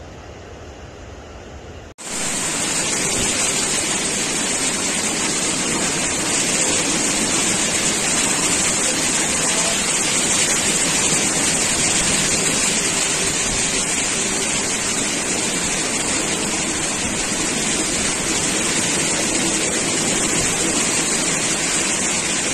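Surf breaking on a beach, then an abrupt cut about two seconds in to the much louder, steady hiss of heavy rain pouring down.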